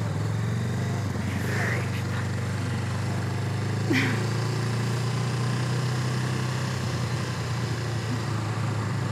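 Motorcycle engine running at a steady low speed: an even, low hum that holds without revving up or down.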